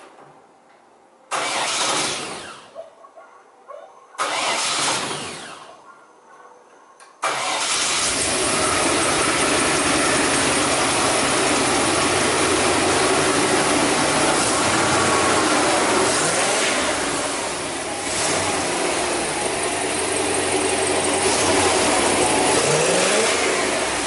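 Engine of a 1960s Chevrolet pickup firing up twice and dying away each time, then catching about seven seconds in and running steadily.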